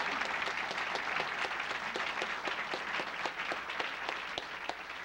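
An audience applauding with many hands, a steady clatter of claps that thins a little near the end.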